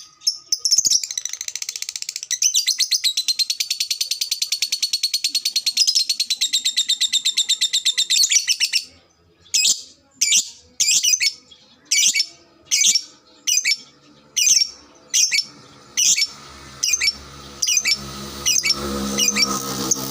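Lovebird 'ngekek': a long, fast, shrill chattering trill for about eight seconds, then single sharp chirps repeated every half second or so. A steady low hum comes in near the end.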